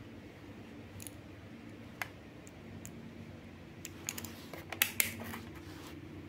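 Small plastic clicks and taps from handling multimeter test-lead probes: one click about two seconds in, then a cluster of sharper clicks a little before and around the five-second mark, over a steady low hum.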